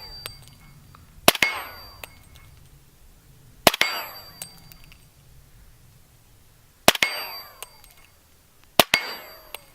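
Four suppressed 300 Blackout pistol shots, a few seconds apart. Each crack is followed at once by the bullet's strike on a 3/4-inch stainless steel plate, which rings briefly. The bullets break up on the surface without denting the plate.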